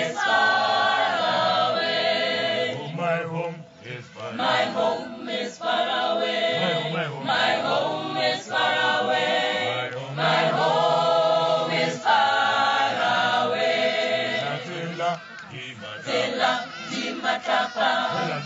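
A mixed choir of men's and women's voices singing a cappella in harmony, in long phrases with short breaks between them.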